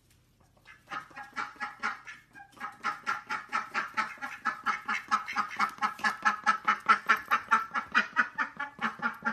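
Domestic ducks quacking in a rapid string of short calls. A few calls come about a second in, then after a brief pause a steady run of about five calls a second.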